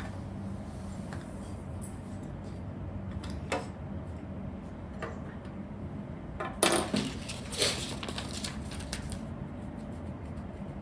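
Hard plastic Lego pieces clicking and clattering as built sections are fitted together. There are a few scattered clicks, then a louder cluster of clacks a little past halfway.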